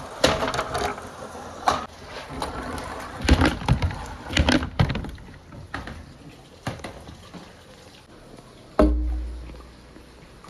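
Marbles rolling and clattering down a handmade marble run track, a rapid irregular run of clicks and knocks that thins out, then one heavy thud with a low boom fading over about a second near the end.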